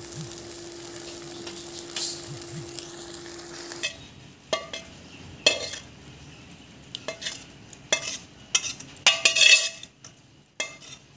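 Thick mung dal bubbling in an iron wok while a spatula stirs it, over a steady hum, for about the first four seconds. Then a spatula scrapes and knocks against the wok and a steel bowl as the dal is scraped out: a string of separate scrapes and clinks, the loudest about nine seconds in.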